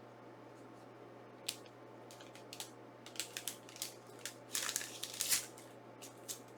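Plastic packaging being handled: scattered crinkling and light clicks, busiest a little past the middle.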